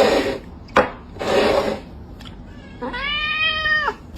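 A domestic cat meowing: one long, arching meow near the end, after two short noisy bursts in the first half.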